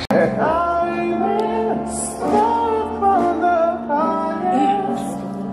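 Music with a woman singing held, wavering notes over a steady accompaniment.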